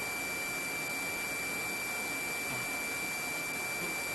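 Open radio or intercom channel with no one talking: a steady hiss with a thin, high, steady tone over it.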